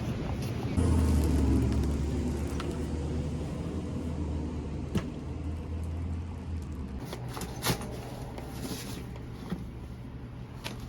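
Low vehicle rumble that starts suddenly about a second in and fades away over the next several seconds, with a few light clicks.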